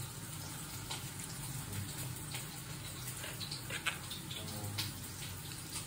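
Wet squelching and dripping as a hand squeezes water out of chopped, salted bitter gourd peels into a steel plate, with scattered small splashes over a faint steady hiss.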